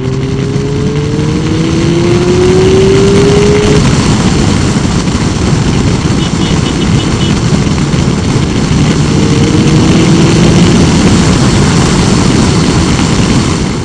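Motorcycle under way at highway speed, heard through a helmet-mounted microphone: heavy wind rush, with the engine's pitch rising as it accelerates over the first few seconds and again about two-thirds of the way through.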